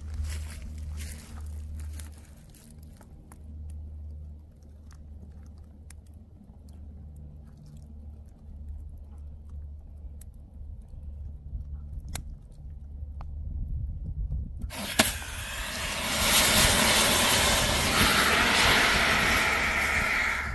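Wood fire crackling faintly under a low rumble, then about 15 s in an Ougist 0.2 lb heat-activated automatic fire extinguisher goes off with a sharp pop and discharges with a loud, steady hiss for about five seconds, its release triggered by the fire's heat.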